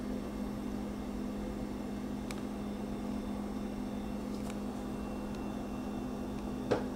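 Microwave oven running with a steady low hum and fan noise, with a few faint clicks and a slightly louder one near the end.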